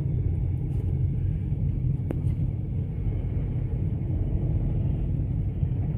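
Steady low rumble of a vehicle on the move, with engine and road noise heard from on board.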